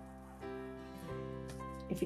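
Soft background music: held notes that change a couple of times.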